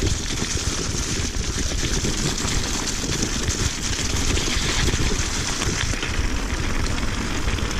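Mountain bike riding down a trail: a steady rushing noise of tyres rolling over the ground and the bike rattling, with wind on the camera microphone.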